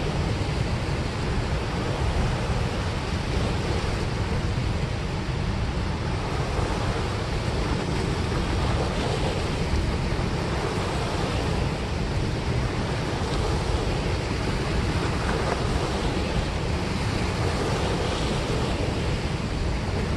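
Steady rush of turbulent water churning out of a dam spillway, a loud, even whitewater noise with no breaks.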